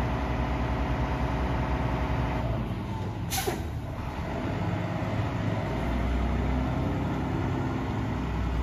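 Mack LEU garbage truck's engine running as the truck pulls away, with a short air-brake hiss about three seconds in. The engine rumble grows louder about six seconds in as the truck moves off.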